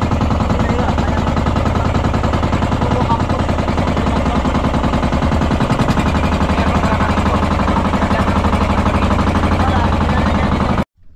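A small boat engine running steadily at constant speed, a fast even chugging of exhaust beats. It cuts off suddenly near the end.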